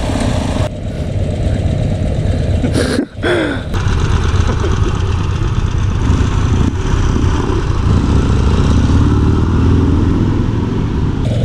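Harley-Davidson XR1200's air-cooled 1200 cc V-twin running at a steady, low idle, then revving up with rising pitch about eight seconds in as the bike pulls away.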